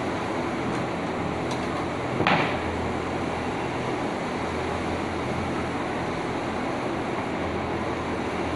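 Steady background hum and hiss, with a single short knock about two seconds in and a couple of faint clicks, as parts of a straight-knife cloth cutting machine are handled during disassembly.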